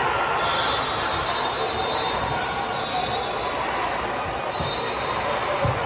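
Indoor volleyball game: a steady din of voices echoing in a gym hall, with short high squeaks through it and two dull thumps in the second half.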